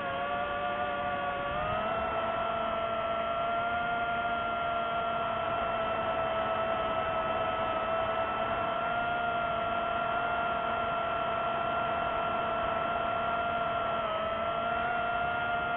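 Drone's electric motors and propellers whining steadily in flight, a pitched hum with a hiss of airflow underneath; the pitch rises slightly about two seconds in and dips briefly near the end as the throttle changes.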